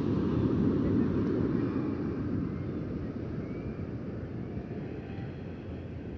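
A low, noisy rumble that swells about a second in and then slowly fades.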